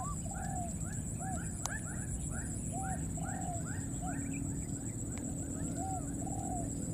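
Baby macaques crying: a quick run of short high squeaking calls, some rising and some arching, two or three a second. Under them run a steady high whine and a low background rumble.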